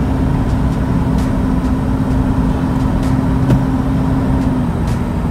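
Road noise of a moving car heard from inside the cabin: a steady low rumble of engine and tyres with a steady drone that drops slightly in pitch near the end.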